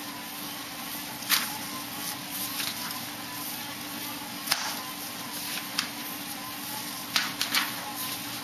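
Sheets of paper crackling and rustling as handheld signs are swapped, a short sharp crackle every few seconds, over a steady background hum.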